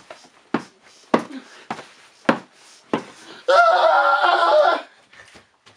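Someone striking a blanket-covered figure on a couch again and again: about six sharp thuds roughly half a second apart. About three and a half seconds in comes a loud, drawn-out, wavering cry from a person's voice, lasting just over a second.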